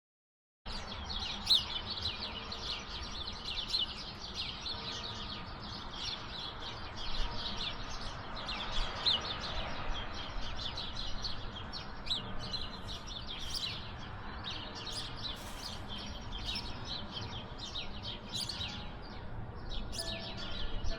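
Many small songbirds chirping and twittering rapidly over a low background rumble. Church bells begin to ring faintly near the end.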